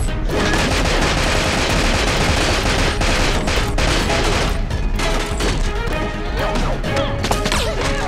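Rapid automatic rifle fire, many shots in quick succession, over a dramatic music score.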